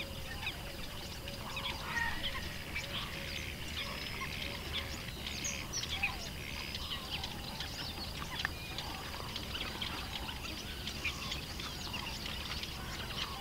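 Many small birds chirping and calling, with a steady high tone running underneath.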